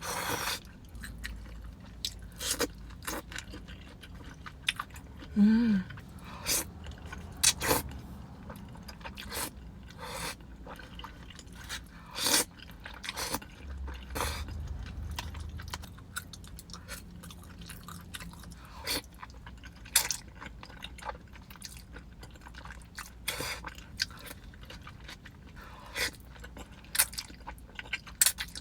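Close-miked chewing of creamy carbonara pasta, with irregular sharp wet clicks and smacks scattered throughout. A short hummed "mm" comes about five seconds in.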